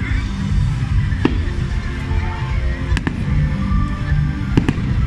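Aerial firework shells bursting: several sharp bangs a second or more apart, the last two in quick succession near the end, over steady music.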